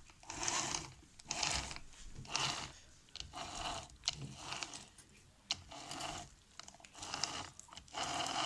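Footsteps crunching at a steady walking pace, about one step a second.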